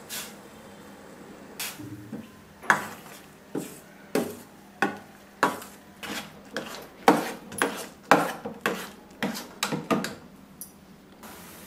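Steel spoon knocking and scraping against a stainless steel kadai while a thick rice flour dough is stirred, about fifteen sharp strokes at roughly two a second, stopping shortly before the end.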